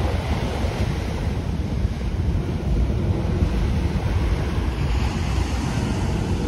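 Small surf waves breaking and washing onto a sandy shore, with wind buffeting the microphone throughout.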